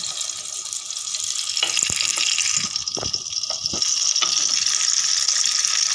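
Chicken patties shallow-frying in oil in a nonstick pan, a steady sizzle, with several short knocks of a wooden spatula against the pan between about one and a half and four seconds in.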